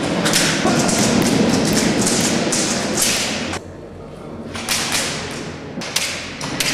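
Airsoft guns firing in an indoor close-quarters game: irregular sharp shots and BB hits, with a short lull a little past halfway before the shooting picks up again.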